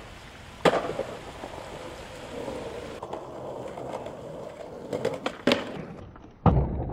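Skateboard wheels rolling on concrete, with a sharp clack of the board landing about a second in. Near the end there are more clacks as the board hits a ledge, then a heavy thud of the board landing.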